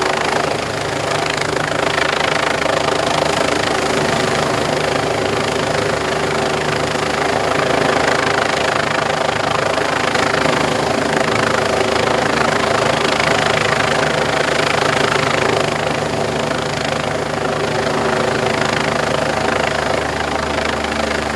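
Disaster-prevention rescue helicopter running steadily overhead, a continuous turbine whine over rotor noise.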